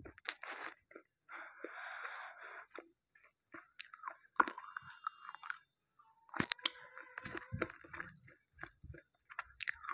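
Slate pencil being bitten and chewed: several sharp crunching snaps, with gritty grinding chews between them.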